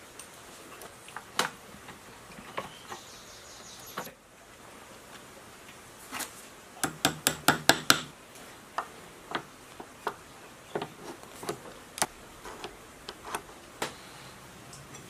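Hammer tapping a ball-handled steel lever into place on an old lathe's headstock: a quick run of about seven sharp metal taps in under two seconds near the middle, among scattered clinks of hand tools on the metal casting.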